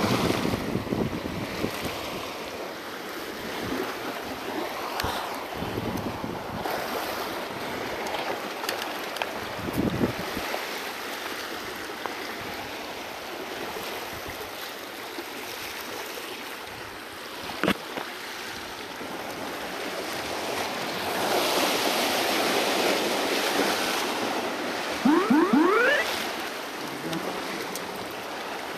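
Small harbour waves washing and swirling against a rock ledge, rising and falling in surges. A single sharp click comes about two-thirds through, and near the end a brief cluster of rising squeaky tones is the loudest sound.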